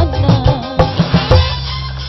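Live band music: a gliding melodic line fades out in the first half second, followed by sharp hand-drum strokes over a steady bass note.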